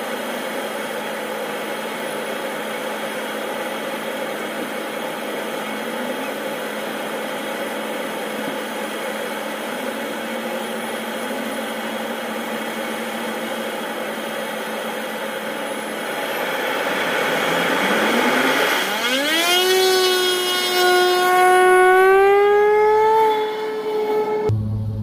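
Air Tractor agricultural plane's Pratt & Whitney PT6A turboprop running at idle with a steady whine, then about 17 seconds in the power comes up: the tone rises steeply, settles higher and gets louder as the engine spools up.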